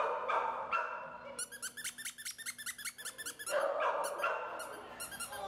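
Dogs barking and whining, with a quick run of high-pitched chirps in the middle.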